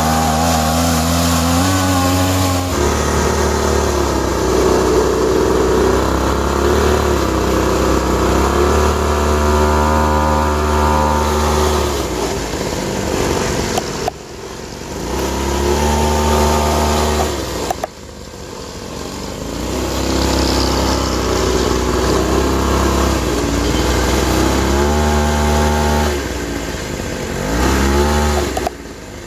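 Motors of a homemade radio-controlled CAT 797 dump truck running with a pitched whine that rises and falls as the speed changes. It dies down briefly about halfway through, a few seconds later, and again near the end.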